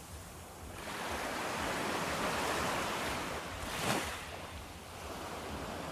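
Ocean waves washing in, a rushing noise that swells about a second in, with a sharper crash just before the four-second mark.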